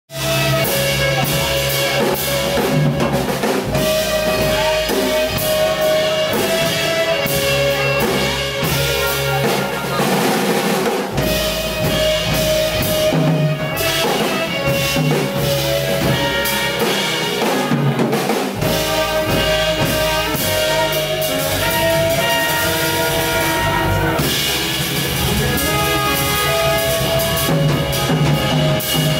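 Live jazz sextet playing: trumpet and saxophone carry the melody in held notes over drum kit, double bass, guitar and Hammond organ.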